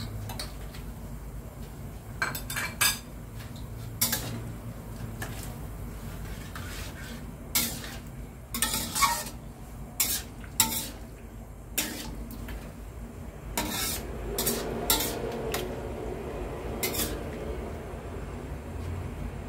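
Metal spatula stirring food in a stainless steel wok, scraping and knocking against the pan with irregular clanks, busiest in the middle and later part.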